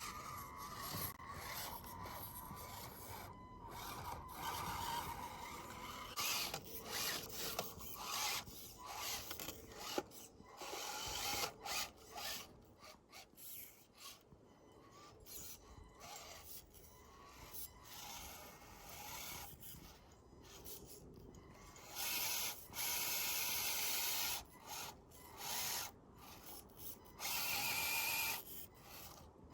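Axial SCX24 Deadbolt 1/24-scale electric RC crawler driving through snow: its small motor and geared transmission whirring in stops and starts as the throttle is worked, with two longer, louder runs near the end.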